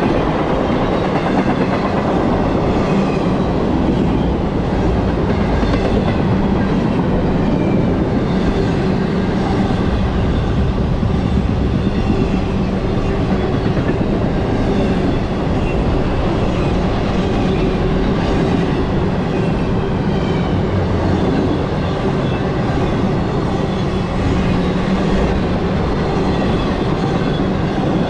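CSX intermodal freight train's cars rolling steadily past, a continuous rumble of steel wheels on the rails.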